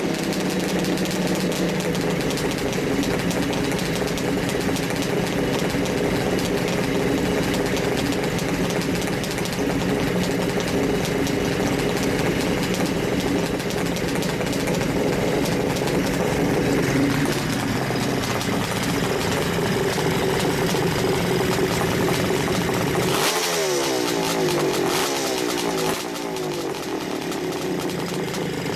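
Kawasaki 750SS Mach III (H2) two-stroke triple running at idle after being started, then revved up and down a few times near the end.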